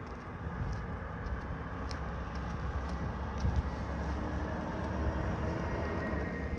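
Green-waste collection truck's engine running with a steady low rumble, growing gradually louder.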